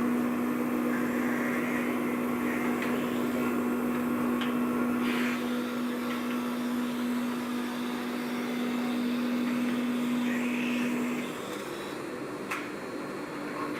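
CNC wood lathe with an automatic blank feeder running, a steady machine hum that stops about eleven seconds in, with a few faint clicks.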